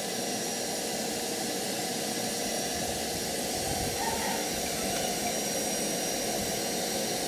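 Stainless-steel canister vacuum cleaner running steadily with a constant whine and hiss, vacuuming out a pickup truck's cab.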